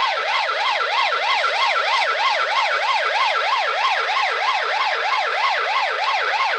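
Police car siren on its fast yelp setting, the pitch sweeping up and down about four times a second.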